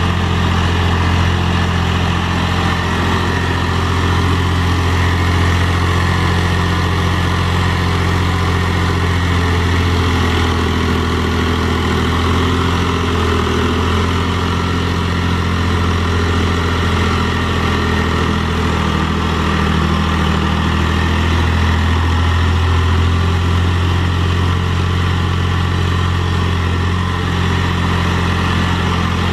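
Mahindra 3525 tractor's diesel engine running steadily as the tractor works dirt with a rear box blade.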